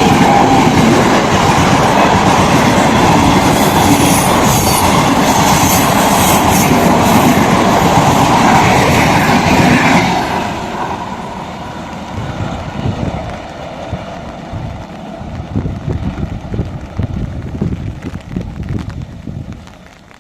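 Passenger train passing close by at speed: a loud rush of wheels and coaches for about ten seconds, then a quieter, rhythmic clickety-clack of wheels over rail joints that fades out at the end.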